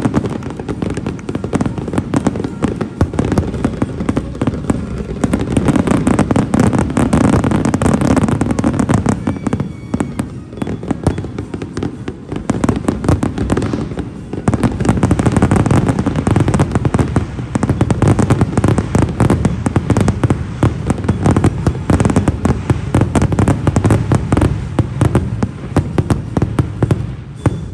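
A dense barrage of aerial fireworks: rapid, overlapping bangs and crackling that ease off for a few seconds about ten seconds in, then build up again.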